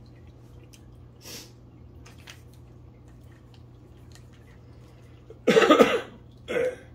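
A man coughs twice into his fist near the end, a longer harsh cough followed by a shorter one, from the burn of the spicy hot-sauce chicken he is eating. A few faint rustles come earlier as he handles a sauce packet.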